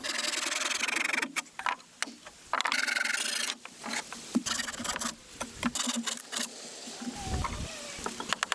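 Wood being worked by hand: two long scraping strokes of about a second each, then a run of sharp knocks and clicks.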